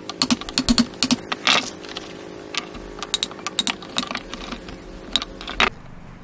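Hand chisel driven by hand pressure into a mortise in a wooden block: an irregular run of sharp clicks and cracks as the blade shears and levers out the wood fibres, with one longer rasping cut about one and a half seconds in. The clicking stops abruptly about five and a half seconds in.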